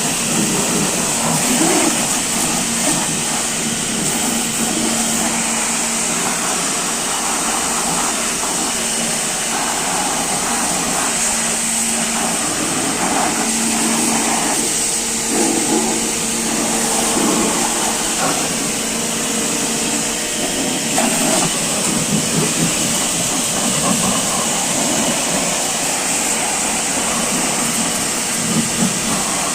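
Steady loud hissing machine noise with an electric motor hum that cuts in and out, twice.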